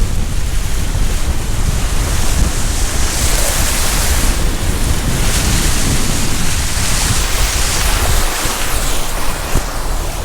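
Tropical-storm wind gusting hard on the microphone, a heavy low rumble under a hiss of wind-driven rain and water, the hiss swelling in the middle and easing near the end.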